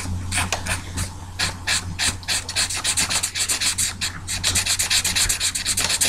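Felt-tip marker scribbling on paper, colouring in a patch with rapid back-and-forth strokes, several a second.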